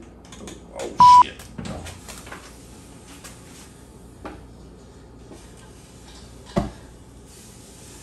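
A censor bleep: one short, loud electronic beep about a second in, covering a word amid faint muttering. A single sharp knock comes later, then a steady hiss near the end.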